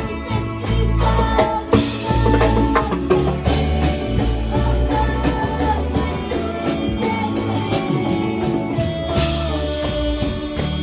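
Band music with drums, bass and guitar and a steady beat, with some singing.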